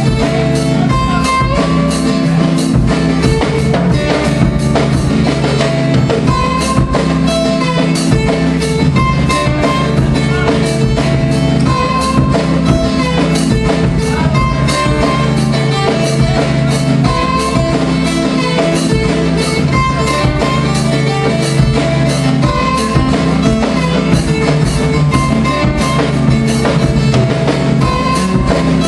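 Live instrumental passage on strummed acoustic guitar with drums keeping a steady beat, loud and continuous.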